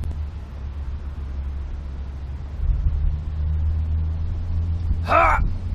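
Low steady mechanical rumble, a little louder after about three seconds, and one short harsh bird call near the end.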